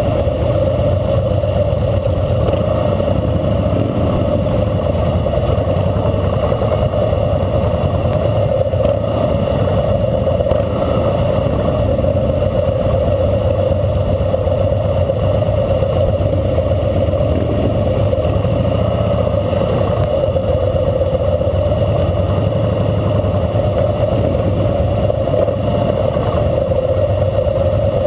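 Harley-Davidson Fat Boy Lo's air-cooled V-twin engine running steadily at a slow parade pace, heard from a camera mounted on the bike, with other motorcycles riding close by.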